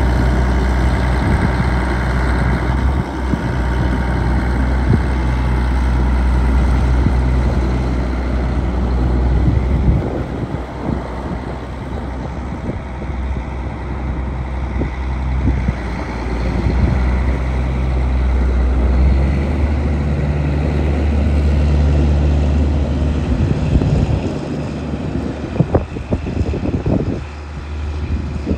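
John Deere 9400 4WD tractor's diesel engine running as the tractor drives, its deep engine note easing off about ten seconds in and building again later. A few sharp knocks near the end.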